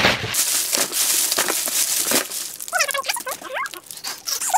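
Plastic-bagged squishy toys crinkling and rustling as they are tossed and handled by the handful, with a few short squeaks about three seconds in and again near the end.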